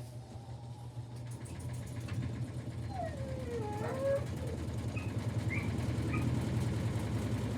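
A washing machine loaded with rocks, its drum spinning up and rattling rapidly with a steady low hum, gradually getting louder. A brief wavering whine about three seconds in.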